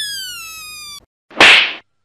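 A kitten's high meow, falling slowly in pitch and ending about a second in. Half a second later comes a short, loud rushing burst of noise, the loudest sound.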